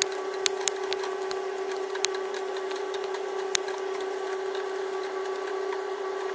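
A steady mid-pitched hum runs throughout, and sharp clicks of metal tongs on the grill grate come a few times in the first few seconds as chicken wings are lifted off.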